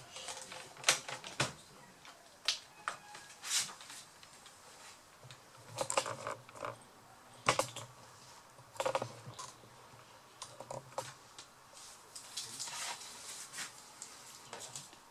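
Scattered clicks and taps of a Samsung R710 laptop's plastic case being handled: the lid opened, the machine set down and its keys and buttons pressed to switch it on.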